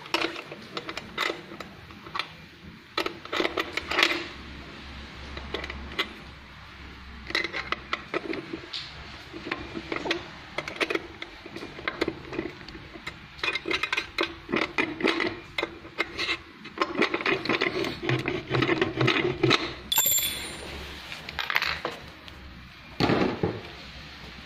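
Metal fittings and tools clinking, knocking and scraping as parts of an industrial sewing machine's stand and knee-lifter linkage are fitted by hand. A brief high-pitched tone sounds once, about twenty seconds in.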